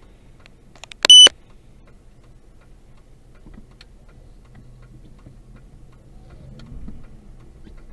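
A single short, loud, high-pitched electronic beep about a second in, over a low background of faint clicking and low vehicle rumble.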